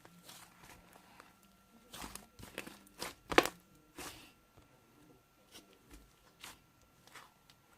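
Slime being squeezed and pressed by hand, giving irregular sticky clicks and pops, the loudest a little over three seconds in.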